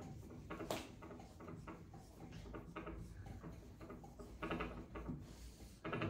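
Dry-erase marker writing on a whiteboard: a series of short scratchy strokes with pauses between them.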